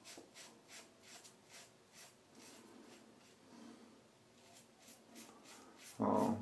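Apollo slant-bar safety razor with a Gillette Silver Blue blade scraping through lathered stubble in quick, short, crisp strokes, about three a second. A brief, louder, dull bump comes near the end.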